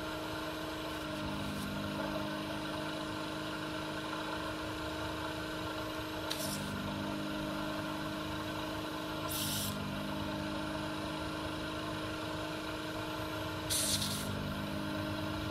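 Vacuum pump running steadily with a hum, and three short hisses, about six seconds in, about nine and a half seconds in and near the end, as the trigger valve is opened and air is drawn through the suction tip to pull molten solder from circuit-board joints. The pump's note shifts with each hiss.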